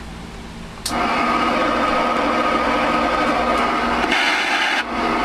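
Alpha 10 Max ten-meter radio's speaker opening up on the air: a steady rush of band static with several whistling heterodyne tones, coming on suddenly about a second in, with a brief hissier surge a little after the middle.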